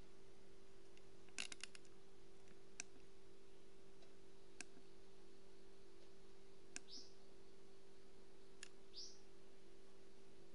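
Sharp clicks of a finger pressing the buttons on a Victron BMV-700 battery monitor: a quick cluster of several about a second and a half in, then single clicks every couple of seconds, over a steady low hum. Two short high chirps come in the second half.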